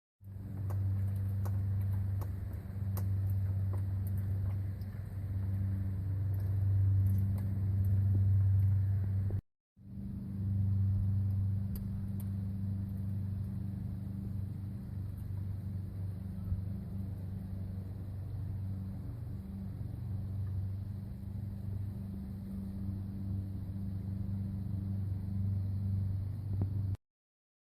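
Sprinter van's drivetrain giving a steady low roaring drone while running, the transmission roar that the owner sets out to fix. It breaks off briefly about ten seconds in, then carries on unchanged.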